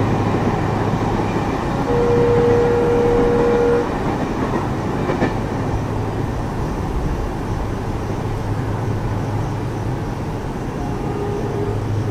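Indian Railways locomotive horn blowing one steady note for about two seconds, with a shorter, fainter horn near the end. Under it runs the steady low rumble of trains on the line.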